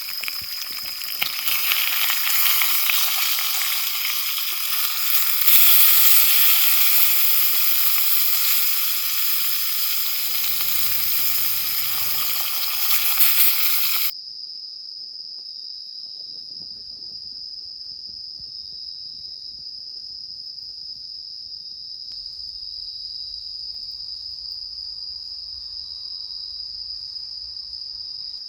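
Food sizzling as it fries in a pan, cutting off abruptly about halfway through. After that, insects trill steadily in one unbroken high tone.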